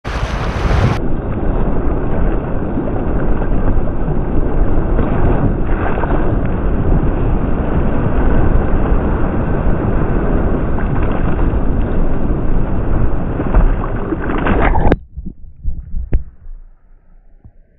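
Whitewater rapids rushing and waves splashing over a kayak's bow, loud and steady. About fifteen seconds in it cuts off suddenly to a quieter wash with a few sharp knocks.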